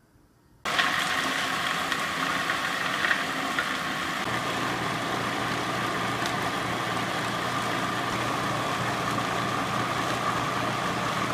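Breville Sous Chef food processor motor running steadily, blending greens, nuts and olive oil into pesto: it starts under a second in with a steady whine, a deeper hum joins about four seconds in, and it cuts off abruptly.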